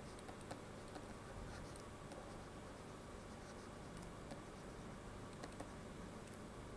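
Faint light tapping and scratching of a stylus writing on a tablet, a few soft clicks spread through, over a low steady hiss.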